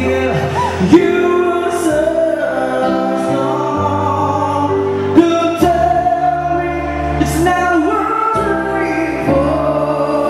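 A vocalist singing live into a microphone over amplified musical backing with sustained chords and a bass line.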